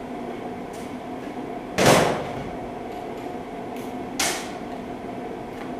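Wrench work on the tight 14 mm wheel bearing mounting bolts: two sudden metallic clunks about two seconds apart, the first louder, over a low steady background.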